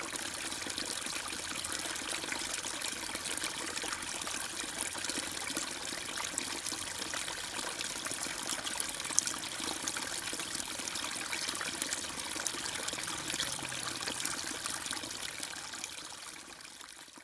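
Running water trickling and splashing steadily in a fish pond, with one brief tick about nine seconds in; it fades out near the end.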